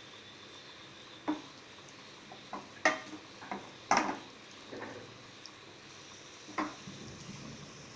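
A wooden spoon knocking and scraping against a pan and a ceramic serving plate while saucy chicken is spooned out. About half a dozen short clinks, spread out, the loudest near the middle.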